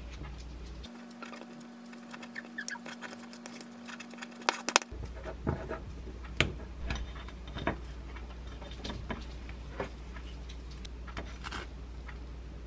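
A metal fork and spoon clink and scrape against a ceramic bowl as thick Greek yogurt and sweet red bean paste are stirred together. The light taps and clicks come thickest in the middle and thin out toward the end.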